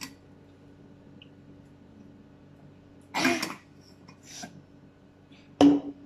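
A person hiccuping: two short, sharp hiccups about three and five and a half seconds in, with a fainter one between, over a quiet room hum.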